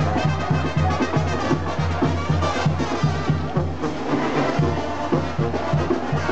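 Brass band playing, a tuba pumping a steady bass line about four notes a second under trumpets and other brass.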